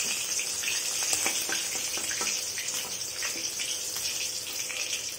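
Fish pieces sizzling in hot oil in a wok, a steady hiss with frequent small crackles as the fried pieces are lifted out.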